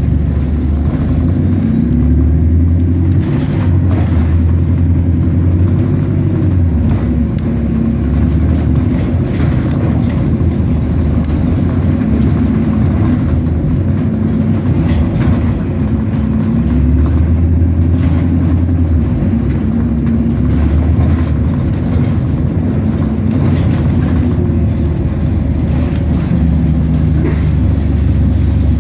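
Bus running on the road: a steady low engine drone whose pitch steps up and down every few seconds as it changes gear and speed.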